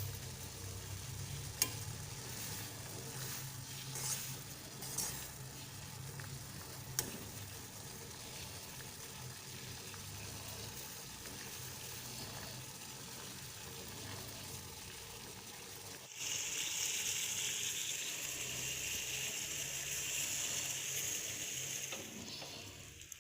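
Steady sizzling hiss of something cooking on heat, with a few light clicks in the first seven seconds. It grows louder and brighter at about 16 seconds, then drops back about a second before the end.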